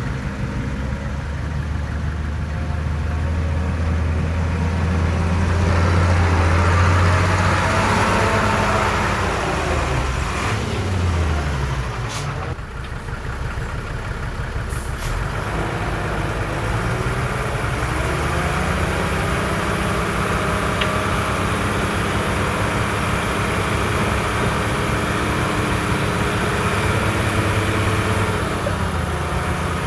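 Heavy diesel engine of earthmoving machinery working under load. It runs up loudest about six to eight seconds in, drops in pitch around ten to twelve seconds, then builds up again and holds. Two short hisses come about twelve and fifteen seconds in.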